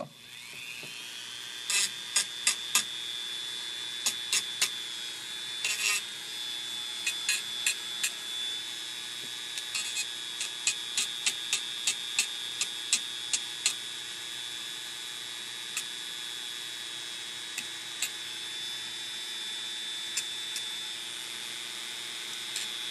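Handheld rotary tool on its low speed setting, starting up with a rising whine and then running at a steady high pitch. Its sanding drum is worked against the bent aluminum edge of an iPad housing, with many brief sharp ticks as it touches the metal.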